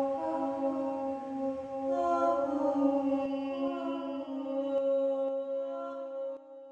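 Several voices holding long, steady chanted tones together in a vocal meditation, different pitches layered into a drone, with new notes entering and dropping out; it fades down near the end.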